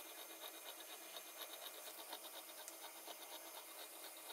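Faint, steady scratchy rasping of a CNC router's end mill cutting into a wood board, over a constant high hiss.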